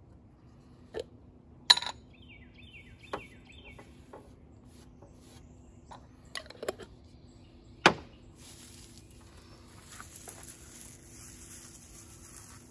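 Glass jars and metal screw lids knocked and clicked on a tabletop as they are picked up and opened, with two sharp knocks standing out. From about two-thirds of the way through, dry pine needles rustle and crackle as they are gathered and twisted in the hands into a tinder bundle.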